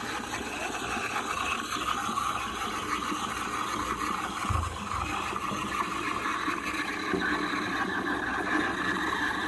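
Steam wand of a De'Longhi espresso machine hissing steadily as it froths milk.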